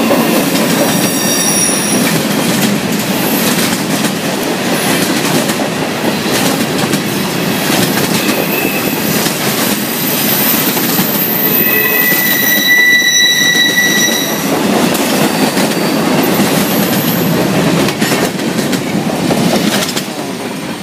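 A long freight train's cars rolling past on steel wheels, a steady rumble and clatter over the rail joints. High-pitched wheel squeals come and go, strongest about twelve to fourteen seconds in. The sound eases off near the end as the train's tail goes by.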